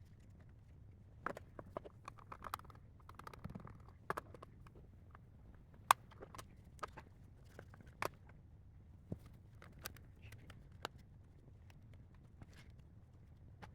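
Scattered sharp clicks and light knocks, with a short rustle a couple of seconds in, from plastic parts being handled while a replacement LCD screen is fitted into a car's dashboard display housing. One click about six seconds in is the loudest.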